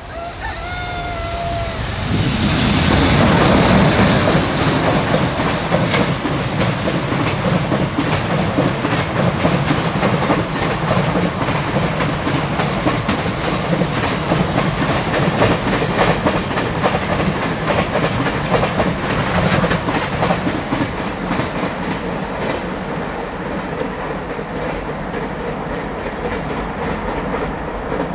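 Container freight train hauled by an EH500 electric locomotive passing close by. The rush swells sharply as the locomotive goes past about three seconds in, then settles into a steady rumble and clickety-clack of wagon wheels over the rail joints, easing a little toward the end.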